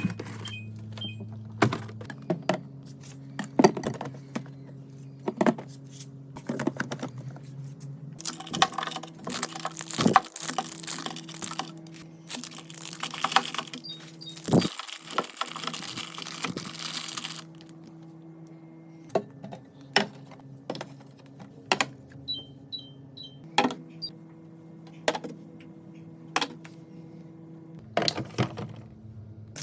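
Plastic containers and items clicking and knocking as they are set into a fridge, with a stretch of rustling packaging in the middle and a low steady hum underneath.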